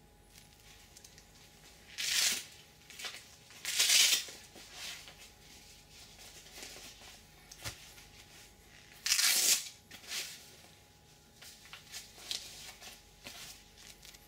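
Goalkeeper glove being handled and smoothed flat: a few short tearing rasps, the loudest about two, four and nine seconds in, with softer rustling and rubbing between them.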